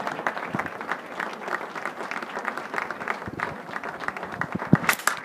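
Audience applauding: dense, steady clapping from many hands, with a few louder, closer claps near the end.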